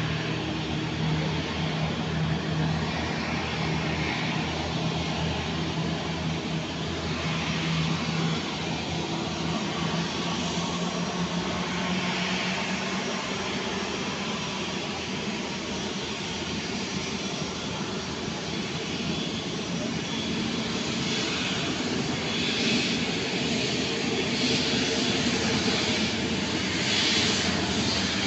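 Airbus A350 airliner's twin turbofan engines running at low taxi power, a steady jet whine and rumble that grows a little louder as the aircraft rolls closer near the end.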